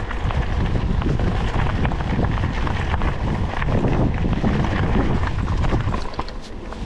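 Wind buffeting the action camera's microphone as a mountain bike is ridden down a trail, with a steady rumble and frequent knocks and rattles from the tyres and bike over rough ground.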